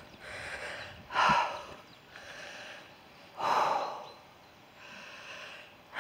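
A hiker breathing hard while walking, out of breath in the heat: three loud breaths roughly two and a half seconds apart, with quieter breaths between them.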